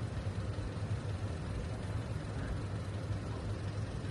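Motor vehicle engine running steadily with a low rumble.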